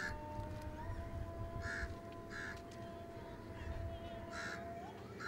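Crows cawing, about five short harsh calls spaced irregularly, over a faint steady tone that steps up slightly in pitch about a second in.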